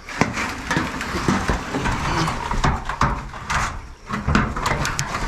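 Rustling and scraping with scattered knocks and clicks, as someone moves through brush and handles debris.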